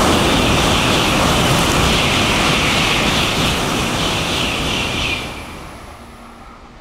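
Shinkansen bullet train passing through a station at high speed without stopping: a loud, steady rush with a strong hiss that drops off sharply about five seconds in as the last car goes by, then fades.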